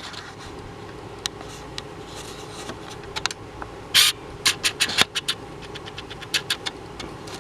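Metal welding gear being handled: a loud click about four seconds in, then a quick string of sharp clicks and clacks, over a steady low hum.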